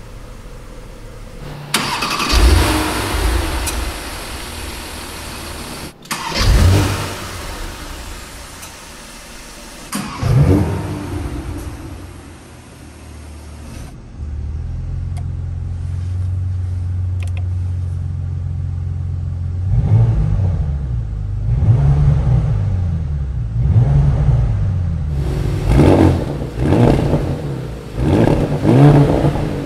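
Porsche Panamera 4's 2.9-litre twin-turbo V6 starting with a flare of revs, then settling to a steady idle. It is then blipped repeatedly in several short revs.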